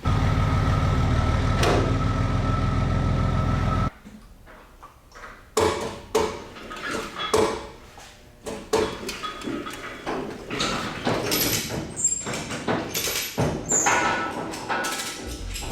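A vehicle engine runs steadily for about four seconds and cuts off abruptly. Scattered metal clanks and knocks follow.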